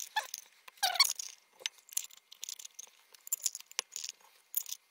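Metal screw bands being twisted down by hand onto small glass mason jars: irregular scraping and light clicking of the metal threads on the glass.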